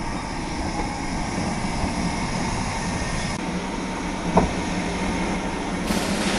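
LMS Ivatt Class 2MT 2-6-0 steam locomotive standing at a platform, giving a steady hiss and low rumble. A short sharp squeak rises out of it about four seconds in.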